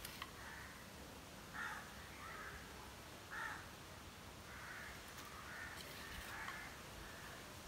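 Crows cawing, faint and repeated: a string of short harsh caws.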